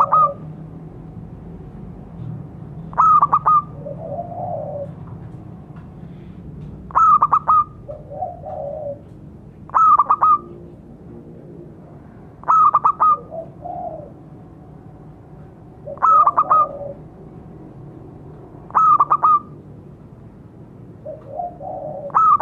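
Zebra dove (perkutut) cooing: a short burst of rapid staccato notes about every three seconds, eight times, with softer, lower coos between several of the bursts.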